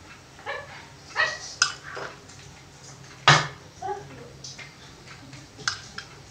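Steel spoon clinking and scraping against a small steel bowl as soya filling is scooped into a momo wrapper, with one sharp clink about three seconds in. A few short, high, yelp-like sounds come in between during the first two seconds.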